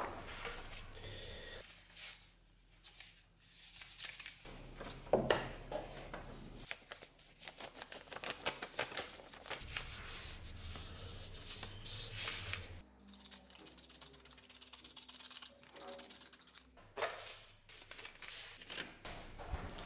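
Sheets of paper being handled, folded and pressed flat by hand on a plastic board, an uneven crackle of rustling and rubbing with bursts of quick clicks.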